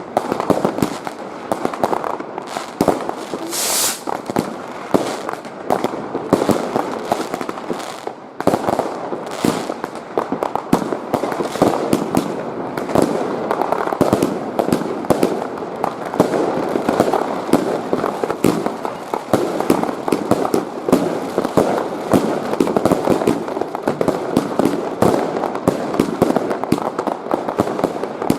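Dense, continuous fireworks: many overlapping bangs of firecrackers and bursting shells, with a brief hiss about four seconds in.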